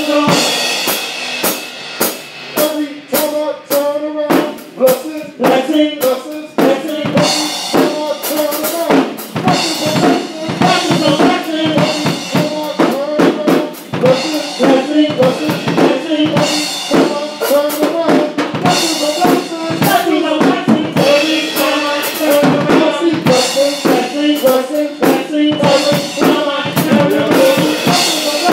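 Music played on a drum kit with other pitched instruments, the drums keeping a steady, busy beat.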